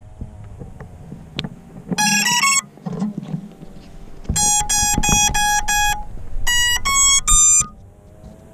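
FPV quadcopter's BrotherHobby R5 2206 brushless motors beeping through their BLHeli-S ESCs, the start-up tones of a freshly powered quad: a quick rising run of tones, then five even beeps, then three rising tones, over knocks and rustle from the quad being handled.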